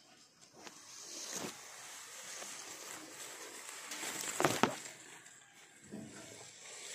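Leaves and branches of a bilimbi tree rustling and brushing against the handheld camera as it moves through the foliage. The noise swells about a second and a half in, then more strongly near four and a half seconds, ending in a sharp knock.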